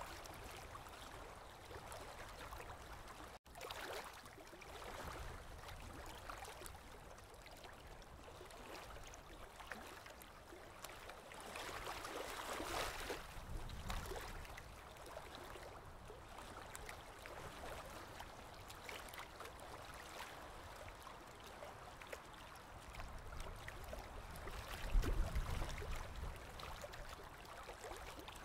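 Steady trickling and gurgling of water in a goldfish aquarium, typical of a filter's outflow. It swells for a couple of seconds about halfway through, and a low thud or rumble near the end stands out as the loudest moment.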